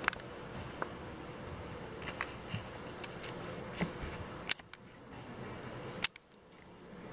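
Young puppies scuffling and tumbling on a blanket, with scattered small clicks and scrapes over a steady hiss. Two sharp clicks come in the second half, and after each one the hiss briefly drops away.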